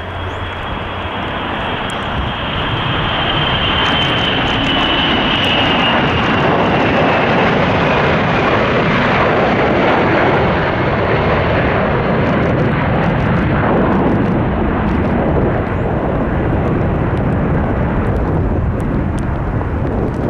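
The four PS-90A turbofans of an Ilyushin Il-96 at takeoff power as the airliner climbs out overhead. A loud rushing engine noise builds over the first few seconds, then holds steady. Over it a high whine slides slowly down in pitch and fades about halfway through.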